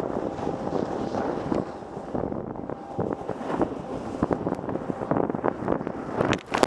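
Snowboard scraping over packed snow as the rider carves down the slope, mixed with wind buffeting the camera microphone. A louder scrape comes near the end.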